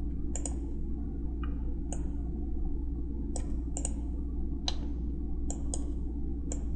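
Computer mouse clicking, about a dozen short, sharp clicks at irregular intervals, over a steady low hum.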